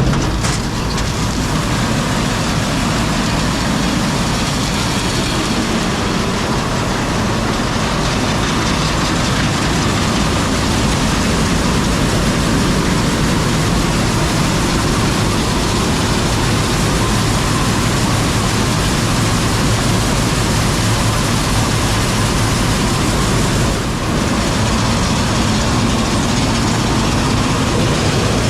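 Machinery running steadily: a loud, even rush and rumble with a low hum underneath, dipping briefly near the end.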